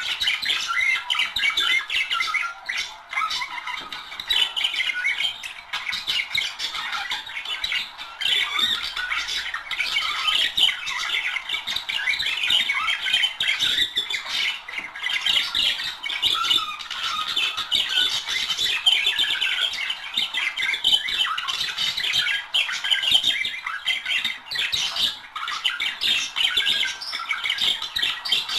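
A pair of budgerigars warbling and chattering without a break, a dense stream of quick scratchy notes and squawks.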